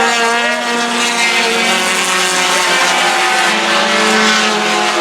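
Pack of four-cylinder stock cars racing on an oval track, several engines at high revs at once, their pitches wavering slightly as they go through the turns.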